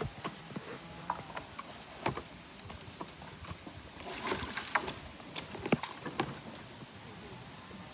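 Bamboo rafts being handled by hand, giving scattered irregular knocks and clatter, with a short rush of water-like noise about four seconds in.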